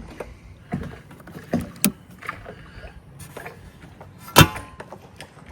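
Scattered knocks and clunks as a person moves about on a catamaran, with one sharp, loud clunk that rings briefly about four seconds in.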